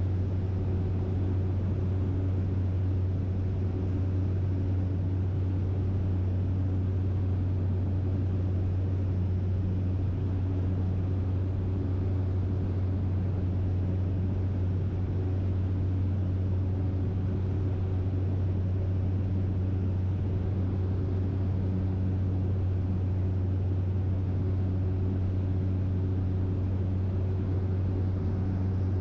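Steady low drone of a small propeller plane in cruise, heard from inside the cabin, with a few faint steady tones above the hum.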